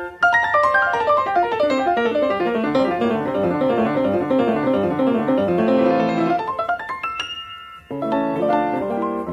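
Background piano music: quick rippling runs of notes, then a brief drop just before eight seconds in and new chords.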